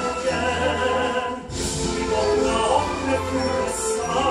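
A male vocalist sings in a classical, operatic style with live orchestral accompaniment.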